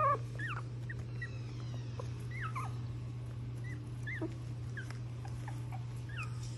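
Very young Pomeranian puppies whimpering: about a dozen short, high-pitched squeaks scattered through, the loudest right at the start, over a steady low hum.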